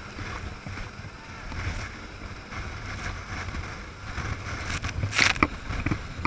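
Rigid inflatable boat running at speed: a steady low engine rumble under the rush of water and wind on the microphone, with a loud burst of wind noise about five seconds in.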